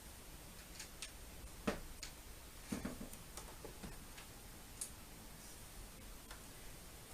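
Faint, irregular clicks and light knocks of screws and a screwdriver being worked while fitting a TV's base stand, with two louder knocks about two and three seconds in.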